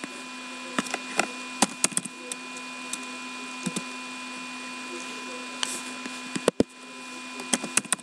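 Sparse clicks and light taps over a steady electrical hum, with a sharper knock about six and a half seconds in.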